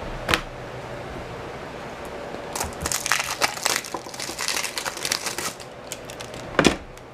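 Baseball card pack wrapper being torn open and crinkled: a run of crackling starting about two and a half seconds in and lasting about three seconds, with a sharp tap just before and a thump near the end.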